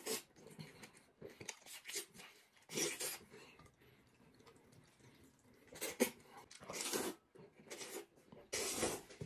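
A man slurping hot-and-sour glass noodles (suanlafen) from a bowl in several short, noisy slurps, with quieter chewing and eating noises between.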